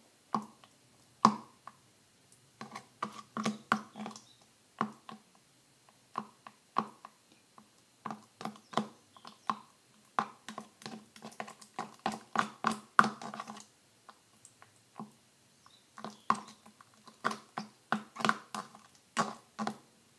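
Thick soap-and-shampoo slime being stirred with a stick in a plastic tub: irregular wet clicks and smacks in clusters, with short pauses.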